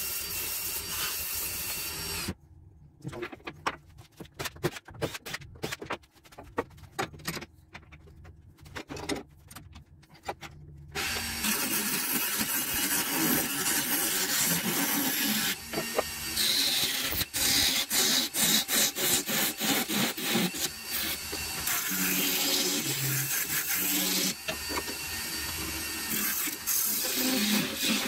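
Wood lathe turning a wooden pot blank: light sanding at first, then a quieter stretch of scattered clicks and knocks, and from about 11 seconds in a turning tool cutting into the spinning wood with a loud, steady rasping shear as chips fly off.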